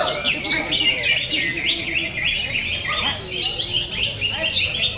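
Cucak ijo (green leafbird) singing a rapid, unbroken string of varied chirps and whistles that sweep up and down, the contest-style song kept birds are played as a 'pancingan' to provoke them into singing.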